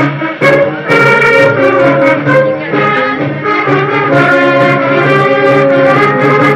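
Brass band music, horns playing a melody over a steady repeating bass beat.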